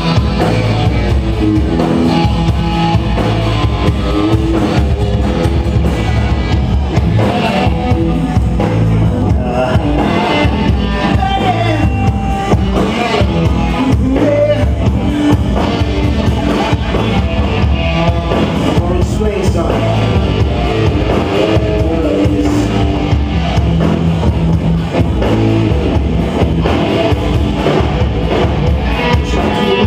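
Live rock band playing a song loudly, with electric guitar over bass and drum kit.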